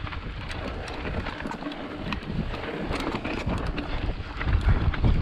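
Wind buffeting the microphone of a mountain biker's action camera, an uneven low rumble that grows stronger near the end, with scattered sharp clicks and rattles from the bike and trail.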